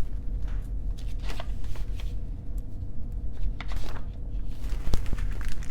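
Paper rustling with a few soft clicks and taps, as of a picture book being handled and its pages turned, over a steady low hum.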